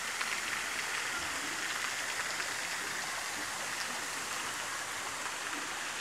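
Small waterfall and rocky stream: water running and splashing over rock into shallow pools, a steady even hiss.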